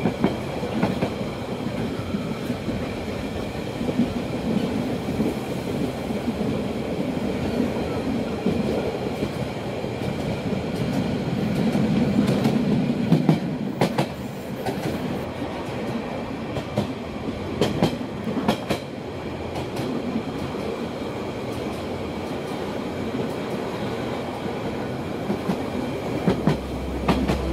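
Narrow-gauge Rhaetian Railway train running along the track, heard from an open carriage: a steady rumble of wheels on rails, with clacks over rail joints and points. The clacks are sharpest in the middle and again near the end.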